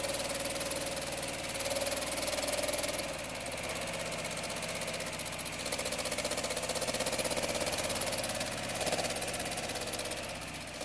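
A freshly rebuilt 1960 MGA's four-cylinder engine running steadily on one of its first starts since the early 1970s. It eases off slightly about three seconds in and picks up again about two seconds later.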